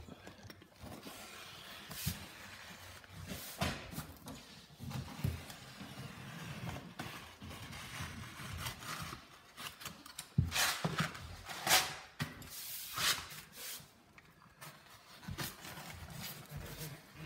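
Sheet vinyl flooring rustling and scraping as it is cut with a utility knife along the wall edge and pressed down by hand, with several louder scraping rasps about two-thirds of the way through.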